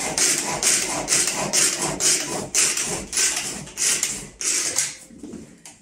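Hand pull-cord food chopper being pulled over and over, a rasping zip with each pull at about two pulls a second, stopping about five seconds in.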